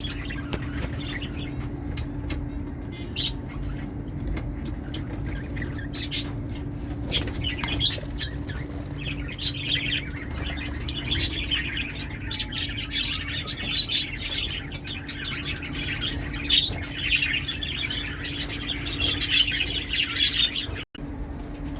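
Lovebirds chattering with rapid high squawks and chirps, sparse at first and then a dense flock chatter from about nine seconds in, over a steady low hum.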